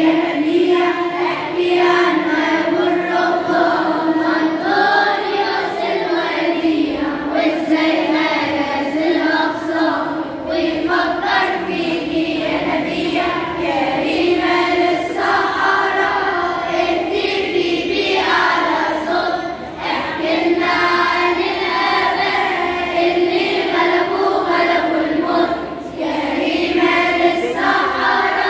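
Children's choir singing an Arabic church hymn together in sustained phrases, with brief breaks between phrases about two-thirds of the way through and near the end.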